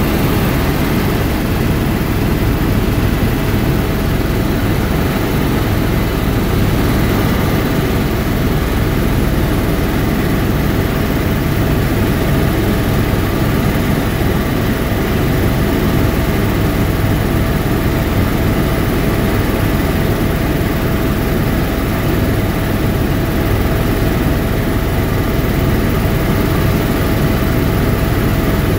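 Helicopter in flight heard from inside the cabin: a steady, loud drone of rotor and engine with a faint constant whine on top.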